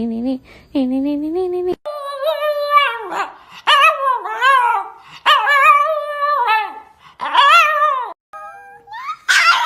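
A Shiba Inu howling in a string of whining calls, each about a second long, that waver and slide up and down in pitch. Before it, a lower sing-song voice stops abruptly about two seconds in.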